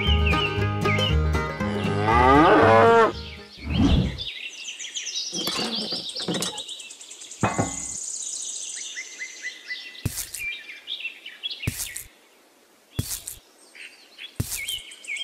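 Background music, then a cow mooing once, loudly, about two seconds in. Birds chirp after it, with a few short sharp clicks near the end.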